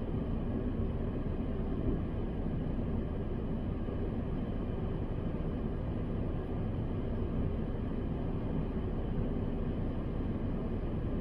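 Steady low rumble and hiss heard inside a car's cabin, with a few faint steady high tones above it.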